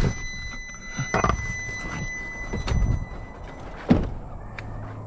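Pickup truck door shut with a loud thunk about four seconds in, after knocks and rustling as someone climbs out of the cab. A steady high tone sounds until just before the door shuts.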